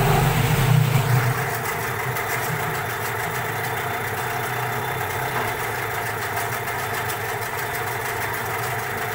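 ALLFA CG 9.9/15 outboard motor running steadily in a test tank, just after its first start and not yet adjusted. It is a little louder and deeper for the first second or so, then settles to an even run.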